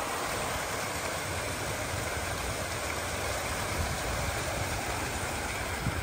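Steady rush of glacier-fed water flowing through concrete trout-farm raceways.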